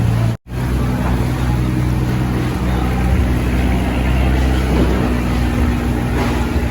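Boat engine running steadily at an even pitch, with one brief moment of silence about half a second in.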